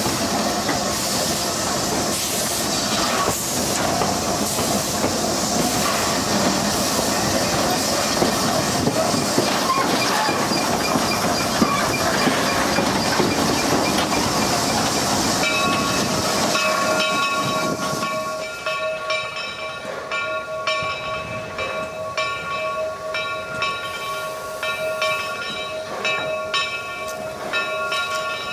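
Baldwin steam locomotive heard from its cab while running: steam hiss and the clatter of wheels on rail. About seventeen seconds in this gives way to a quieter sound holding several steady tones at once.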